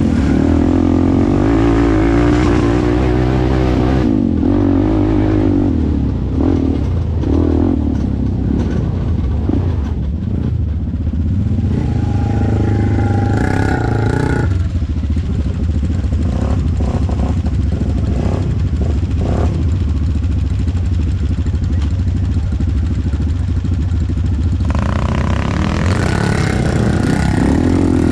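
ATV engine running steadily while riding, its pitch rising and falling with the throttle near the start and end.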